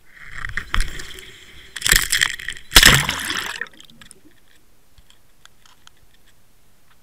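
A camera rig on a fishing line knocking against wet rocks and splashing into the sea: a rough clatter with three loud hits, about a second apart, in the first few seconds. It then goes muffled and quiet under water, with a few faint ticks.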